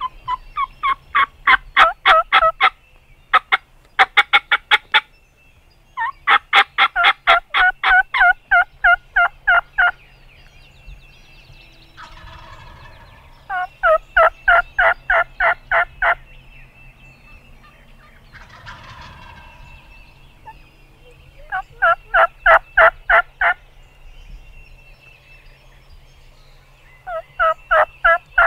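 Wild turkey gobblers gobbling: six loud bursts of rapid rattling gobbles, some running on for several seconds, with quieter pauses in between.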